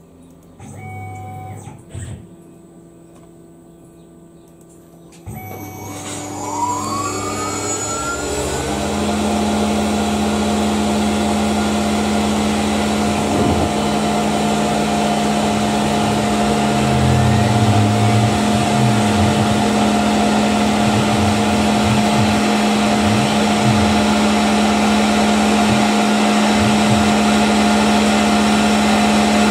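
A CNC milling machine starting a profiling cut. About five seconds in the spindle starts and winds up with a rising whine. From about nine seconds an end mill cuts 12 mm 6061 aluminium plate under flood coolant, a loud, steady machining sound with a strong constant tone.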